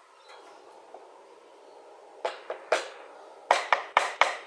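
A spoon knocking sharply against the rim of a dog food bowl, tapping off yogurt. About two seconds of quiet, then three knocks and then four more in quick succession.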